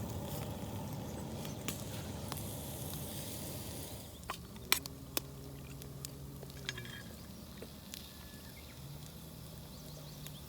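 Food sizzling in a pan over a campfire. About four seconds in the sizzle drops to a quieter level, with a few sharp clicks.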